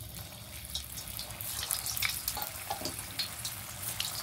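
Cabbage Manchurian balls deep-frying in hot oil in an iron kadhai: a steady sizzle full of crackles and pops.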